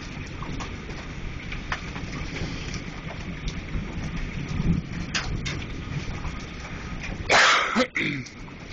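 Thunderstorm ambience: a steady low rumble with rain hiss and scattered sharp taps. About seven seconds in, a loud rushing burst of noise lasts under a second.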